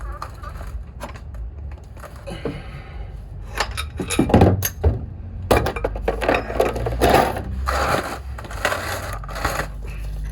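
Metal hand tools clanking, clicking and scraping against the underside of the truck as a wrench is worked onto the oil drain plug, with short knocks coming thicker from about four seconds in.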